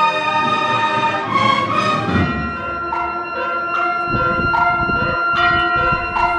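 Band music: slow, sustained wind chords with a few low drum beats, in the manner of a Holy Week processional march.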